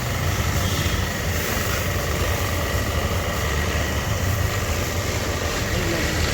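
Pressure washer running steadily with a low throbbing hum while water is used to wash out a rusted petrol tank.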